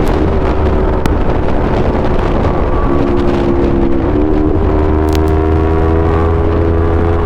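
Yamaha R3's 321 cc parallel-twin engine running through an Akrapovic full-system exhaust, a loud, steady note whose pitch dips about three seconds in and rises again a second later.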